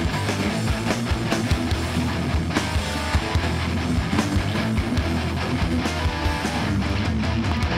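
Hardcore punk band playing live: electric guitars strummed hard over bass and drums, with a steady run of drum hits.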